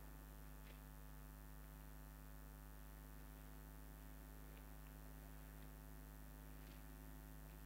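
Near silence: a steady electrical mains hum, with a few faint soft rustles of Bible pages being turned.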